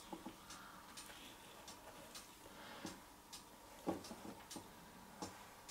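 Faint, light ticking: short sharp ticks about two a second, uneven in spacing and strength, with one heavier tap about four seconds in.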